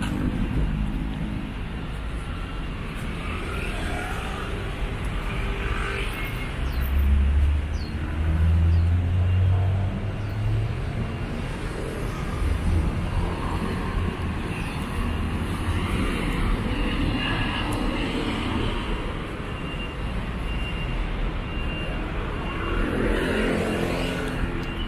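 Road traffic noise: motor vehicles running and passing, with a louder swell about seven to ten seconds in as one goes by close.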